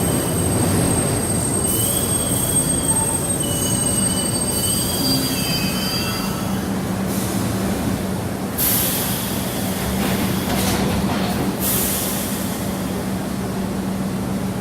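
Subway train running, its wheels squealing on the rails in high, wavering tones through the first half, over a steady low hum. Short bursts of hiss come later.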